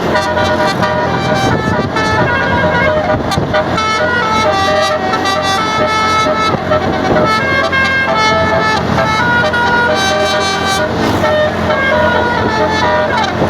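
Bus 'Basuri' telolet horn, a multi-trumpet air horn, playing a continuous melody of stepped, chord-like notes that change several times a second.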